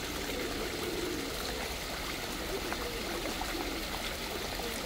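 Steady trickle of water running into a backyard koi pond from the upper pond.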